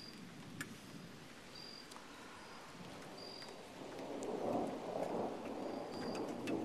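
Thunder rumbling in a severe thunderstorm, building about four seconds in and rolling on to the end, over a steady hiss of rain.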